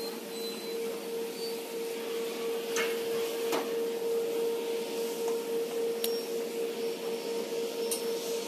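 Motor-driven rotisserie turning a long row of whole lambs on spits over charcoal: a steady mechanical whine and hum, with a few sharp clicks.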